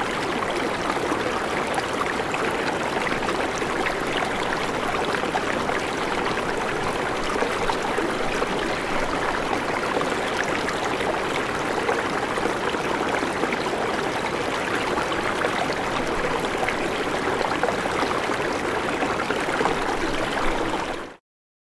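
Floodwater rushing past in a steady, dense noise with no breaks, cutting off suddenly near the end.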